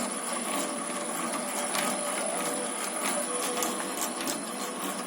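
Metalworking lathe running under a VFD inverter, its gears clattering with irregular small ticks over a steady mechanical run. A thin high-pitched whine comes from the inverter-driven motor.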